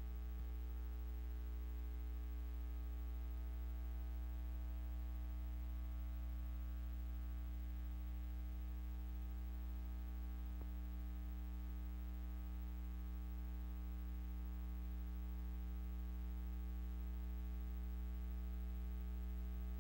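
Steady electrical mains hum with a buzzy stack of higher overtones over a faint even hiss.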